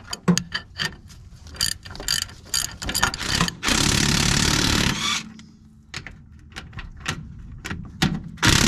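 Cordless impact wrench hammering loose the bolts that hold a power steering gearbox to a truck's frame. It runs in a burst of about a second and a half about three and a half seconds in, and again just before the end, with scattered sharp clicks and taps of the socket and tool in between.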